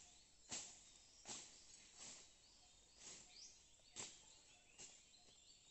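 Faint sounds of plants being cleared by hand from around a mud mound: about six short, sharp swishing strokes under a second apart. Faint bird chirps in the background.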